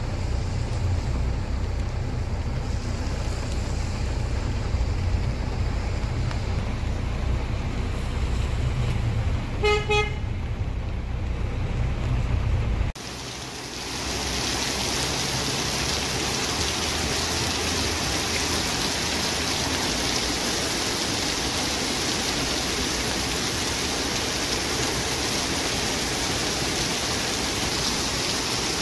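A steady low rumble with a short car horn about ten seconds in. Then, after an abrupt cut, a heavy downpour of rain pours and splashes steadily on paving stones.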